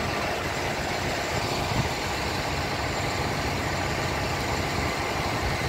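Concrete pump truck's diesel engine running steadily, driving the hydraulics as the boom folds.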